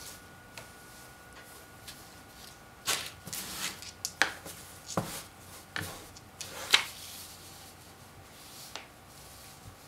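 Sheet of paper being slid and repositioned on a desk by a gloved hand: a handful of rustles and sharp taps between about three and seven seconds in.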